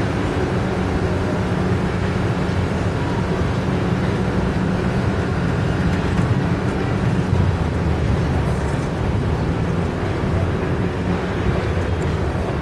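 Steady low mechanical hum and rumble with an even wash of noise over it, unchanging throughout.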